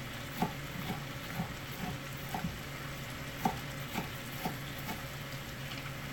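Chef's knife chopping bell pepper on a plastic cutting board: about ten short, irregular knocks, roughly two a second, the loudest about three and a half seconds in. Beneath them a steady low hum and the faint sizzle of food frying in the pot.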